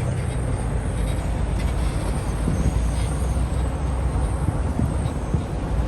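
Off-road wrecker's engine running as the truck drives along a trail: a steady low rumble with scattered small rattles and knocks.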